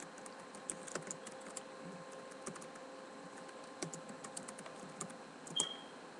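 Computer keyboard being typed on: faint, irregular key clicks over a low steady hum, with one brief high chirp about five and a half seconds in.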